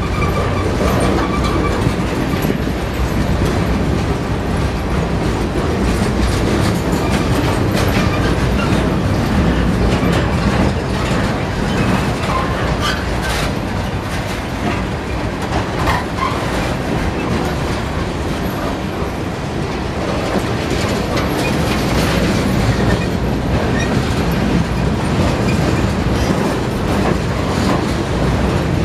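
Loaded flatcars of a Norfolk Southern freight train rolling past at a grade crossing: a steady rumble of steel wheels with a running clickety-clack over the rail joints and crossing.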